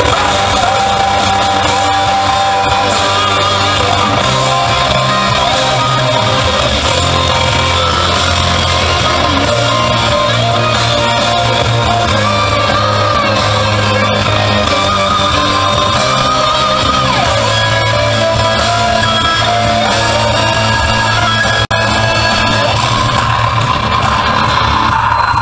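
Loud rock music with guitar, playing steadily throughout.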